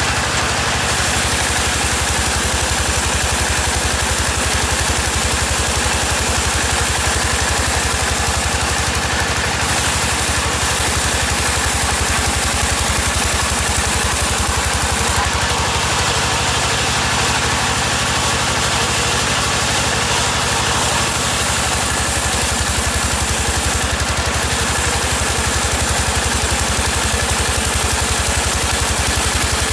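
Sawmill machinery running steadily: an engine with a fast, even chugging pulse and no change in load.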